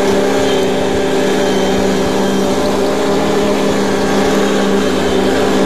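Ride-on lawnmower engine running steadily at one constant speed while mowing, heard close from the driver's seat.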